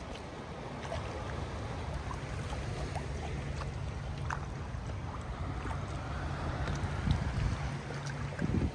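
Water splashing and dripping around a kayak on open water, with small scattered drips and a steady rumble of wind on the microphone.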